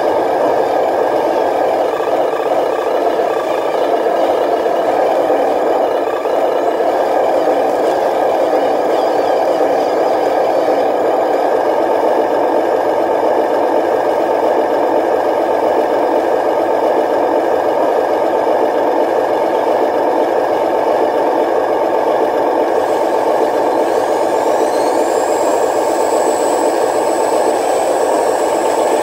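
Remote-control dump trucks running, giving a steady engine-like drone. About 23 seconds in, a high whine rises and then holds as the tipper bed is raised to dump its load of soil.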